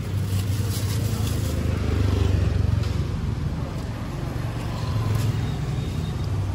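Low engine rumble of a motor vehicle running close by. It is loudest over the first three seconds and swells again about five seconds in.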